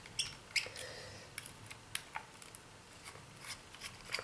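Small screwdriver backing out the screws of a laptop's hard-drive caddy: scattered faint clicks and short scratchy scrapes of metal on metal.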